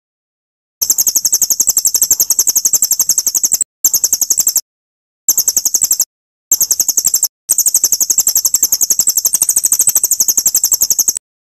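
Recorded songbird call: a very high, rapid chattering trill of about ten notes a second, played in five bursts with abrupt silent gaps between them.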